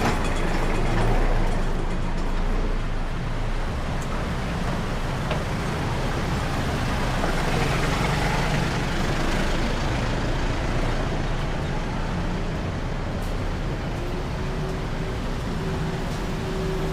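Street traffic noise: motor vehicles running and passing, with a steady engine hum near the end.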